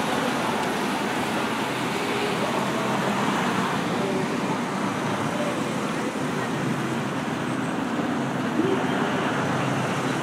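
Steady outdoor street ambience: a continuous wash of traffic noise with faint voices mixed in.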